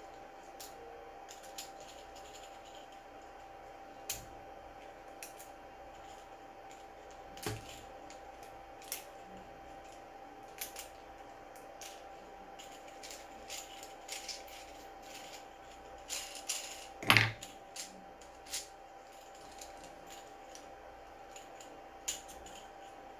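Small scattered clicks and snips of tweezers and cutters working on a 3D-printed plastic ball bearing as stray strands are cleaned off it. The loudest is a sharp clack about 17 seconds in. A faint steady hum runs underneath.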